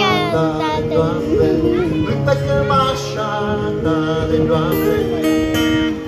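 Live music: a man singing with a wavering, drawn-out vocal line over his own amplified acoustic guitar chords.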